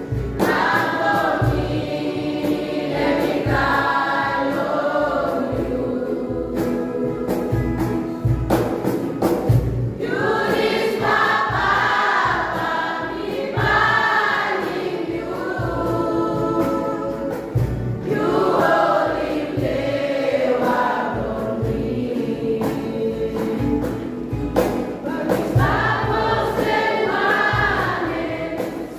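Children's choir singing a gospel song together, with short low thuds underneath.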